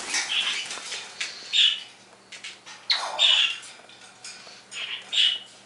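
African grey parrot calling: four short squawking, whistle-like calls spaced roughly a second and a half apart.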